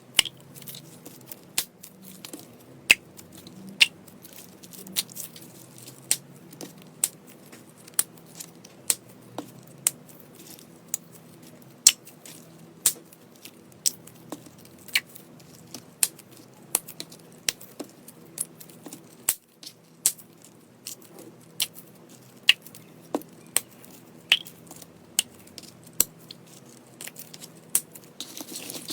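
Slime being pressed and poked by hand, giving sharp wet clicks and pops about once a second over a faint steady hum.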